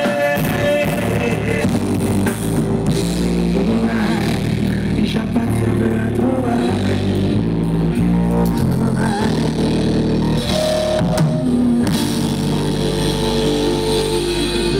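Live band playing amplified music: electric guitar, bass guitar and drum kit together at a steady, loud level.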